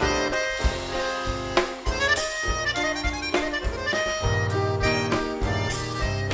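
Chamamé band playing an instrumental passage: an accordion melody over guitar and drums, with a steady beat of about two strokes a second.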